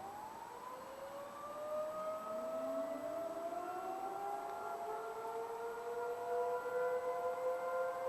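Two outdoor emergency warning sirens winding up for their weekly test, their pitch rising over the first few seconds and levelling off into a steady wail of several tones at once.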